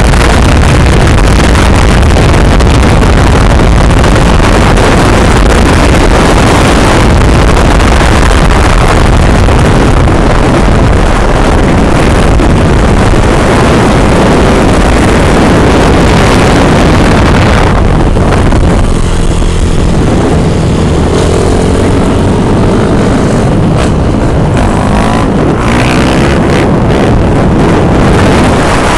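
Loud, steady wind and road noise on a camera mounted outside a moving car, with engine noise underneath. In the last third an engine note rises and falls.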